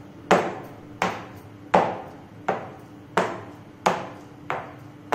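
Round aluminium cake tin full of batter knocked down on a countertop, about seven sharp knocks at a steady rhythm, each ringing briefly: tapping the tin to settle the batter before baking.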